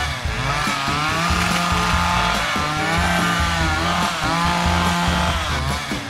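Chainsaw sound effect running and revving, its pitch rising and falling over and over, over background music with a steady low beat.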